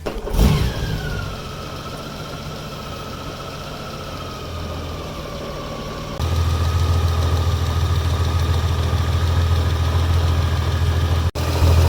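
Motorcycle engine catching with a burst about half a second in, then idling steadily, a whine over it slowly falling in pitch as the idle settles; the low rumble grows louder at about six seconds in.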